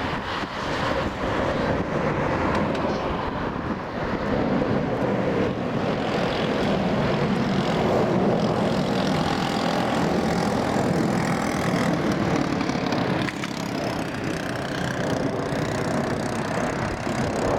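Jet engine noise of a Japan Airlines Boeing 767-300 taking off, a continuous rush that builds to its loudest about eight seconds in and eases slightly later, with wind buffeting the microphone.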